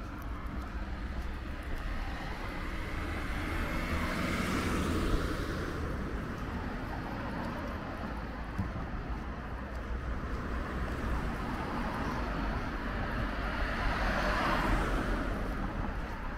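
Two vehicles passing along a street, one swelling up and fading about four to five seconds in and another near the end. A steady low wind rumble sits under them.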